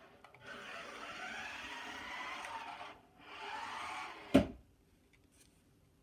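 Toy remote-control car's small electric motor and gears whirring in two runs of a few seconds, the whine rising in pitch during the first, followed by a single loud knock about four seconds in.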